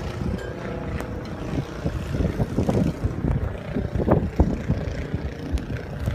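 Blizzard wind buffeting the microphone: gusty, low rumbling noise that swells and drops irregularly.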